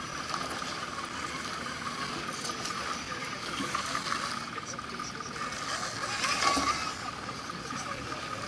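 Electric motors and gearboxes of scale RC crawler trucks whining steadily as they crawl over rough dirt. The whine gets louder a little past the middle as a truck comes close.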